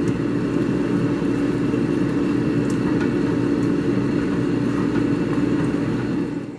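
A steady mechanical whirring hum with a low, even tone.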